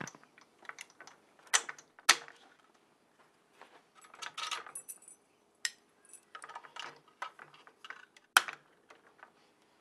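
Keys hanging in a lock cylinder jangling, with the metal handle parts clicking and knocking as lock handles are fitted onto an Xpanda Aluglide security gate. A scatter of sharp clicks and short rattles, the loudest about two seconds in and again about eight seconds in.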